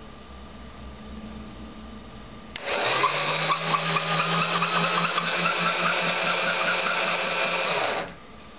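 Small DC motor under microcontroller control switching on with a click, speeding up briefly, then running steadily for about five seconds before cutting off suddenly.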